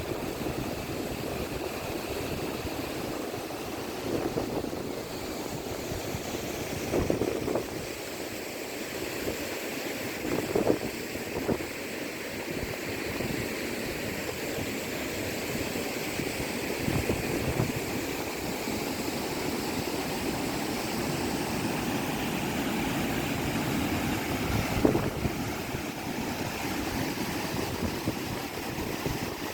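Steady rush of wind and moving water, with gusts of wind buffeting the microphone every few seconds.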